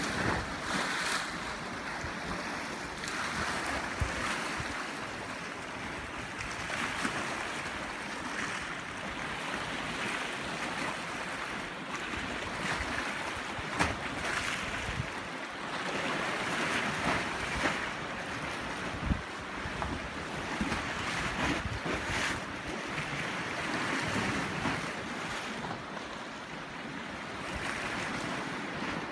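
Mediterranean sea waves washing and lapping against rocks, swelling and falling every few seconds, with wind on the microphone. A few brief knocks stand out, about 4, 14 and 19 seconds in.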